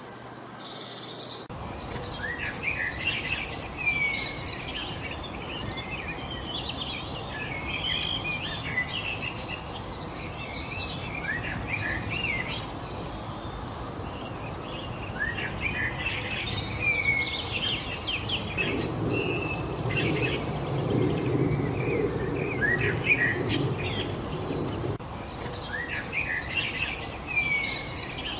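A mix of several songbirds chirping and calling in quick, overlapping phrases over a steady background hiss, starting about a second and a half in. A low rumble rises under the birdsong for several seconds about two-thirds of the way through.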